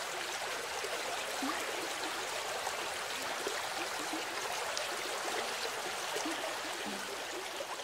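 Running water flowing steadily, like a small stream.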